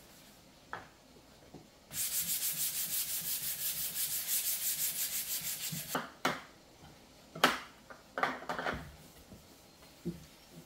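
A pink scrub pad rubbed briskly back and forth over a wooden cutting board, about six even strokes a second for some four seconds. Then wooden boards knock and clatter as they are moved and set down, the sharpest knock a little past the middle.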